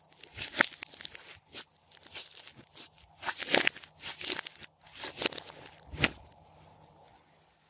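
Glossy slime mixed with floam beads being squeezed, pressed and stretched by hand, giving irregular sticky crackles and pops that come in clusters and die away near the end.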